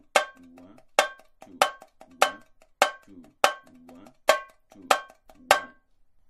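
Tamborim, a small Brazilian frame drum, struck with a drumstick in a steady samba pattern: sharp, ringing accented hits about every 0.6 s with quieter strokes between. The playing stops shortly before the end.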